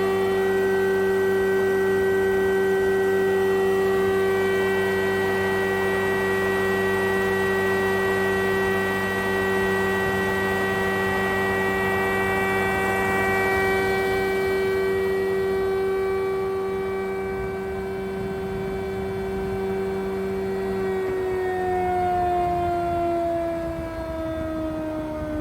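Jaroma DSMB 63 thicknesser running with a steady, many-toned hum from its 5.5 kW motor and four-knife cutterhead. About 21 seconds in it is switched off, and the pitch falls steadily as the cutterhead spins down.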